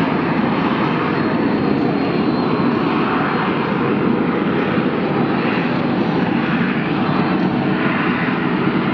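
AV-8B Harrier's Rolls-Royce Pegasus vectored-thrust turbofan at high power, hovering with its nozzles pointed straight down; a loud, steady jet noise with no change in level.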